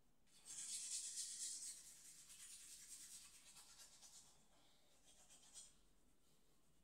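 Manual toothbrush scrubbing teeth: a soft, quick bristly scrubbing, most vigorous for the first second or so, then lighter strokes that trail off about five seconds in.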